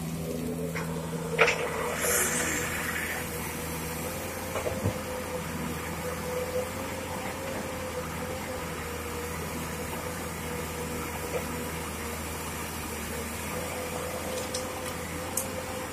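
Heavy diesel engine of a Komatsu PC200 excavator idling steadily, a low hum with a steady whine above it. A sharp click comes about a second and a half in, followed by a short hiss.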